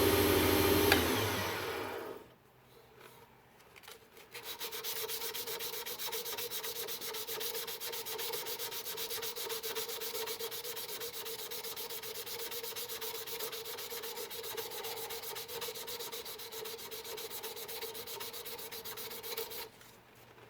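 A lathe running fades out about two seconds in. After a short pause, sandpaper rubs against an acrylic pen blank spinning on the WEN lathe: a steady rasp over a faint hum for about fifteen seconds, stopping near the end.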